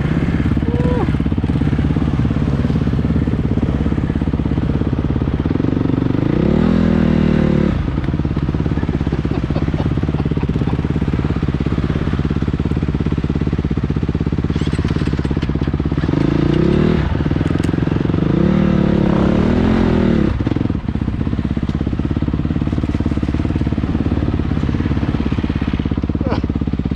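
Enduro motorcycle engine running steadily, with the revs rising and falling twice, about a quarter of the way in and again past halfway.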